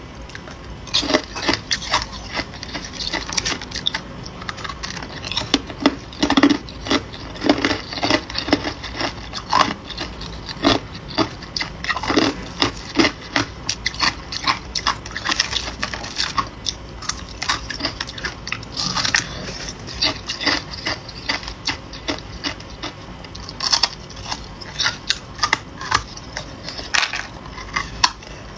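A person biting and chewing ice: an irregular run of sharp crunches and cracks, coming in clusters with short pauses between bites.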